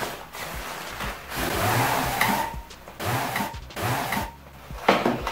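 Cardboard box flaps and a fabric tripod carry bag rustling and scraping as the bag is pulled out of the box, in irregular surges, with a sharp knock about five seconds in.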